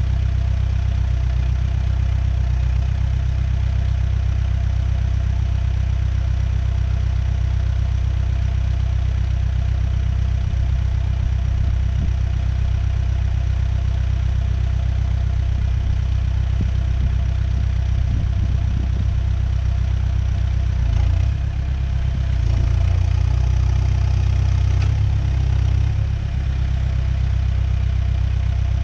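New Holland B100B backhoe loader's diesel engine idling steadily, running a little louder for a few seconds about three-quarters of the way through.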